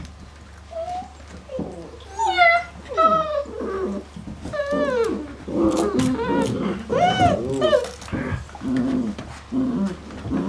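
Five-week-old Great Dane puppies whining and yelping in a string of short cries that rise and fall in pitch, starting about a second in, with a few lower, rougher grunts near the end.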